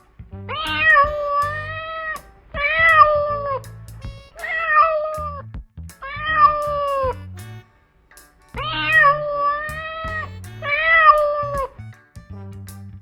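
Domestic cat meowing six times, each meow long and drawn out, over background music with a steady beat.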